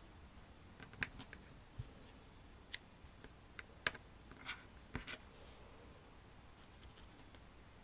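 Small scissors trimming the wool fur of a needle-felted cat doll's face: about ten faint, sharp snips and clicks, spread over the first five seconds.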